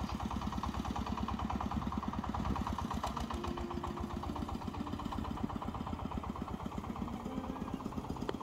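Motorcycle engine running steadily with a rapid, even pulse.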